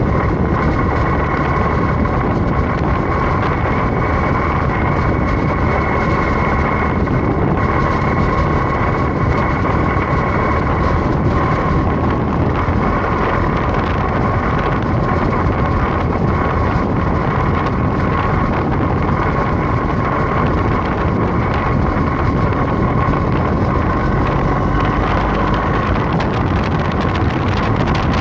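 BMW R1250GS boxer-twin motorcycle riding at a steady speed, the engine holding an even pitch under wind rushing over the microphone.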